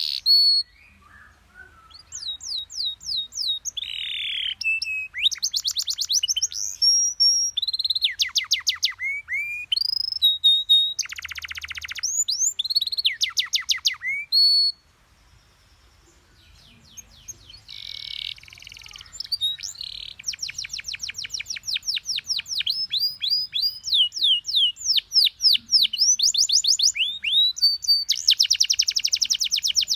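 Domestic canary singing a long, varied song of fast repeated sweeping notes, trills and buzzy rolls, breaking off briefly about a second in and for about two seconds around halfway through.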